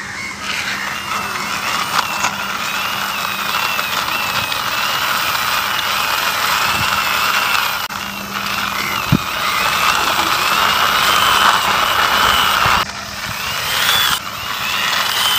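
Plastic toy double-decker bus pushed by hand along a rough painted concrete ledge: its plastic wheels roll with a continuous grinding rattle and a wavering whirring whine. The sound stops briefly twice, about eight and thirteen seconds in.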